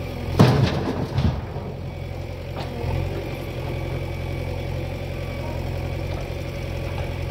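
Diesel engine of a tractor or backhoe loader idling steadily, with two loud knocks about half a second and a second in, and a smaller click a little later.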